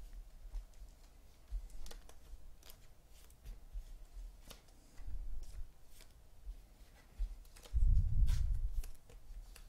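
Trading cards handled and set down on a cloth-covered table: scattered light clicks and rustles, then a louder, low rub about eight seconds in as a stack of cards is slid across the table.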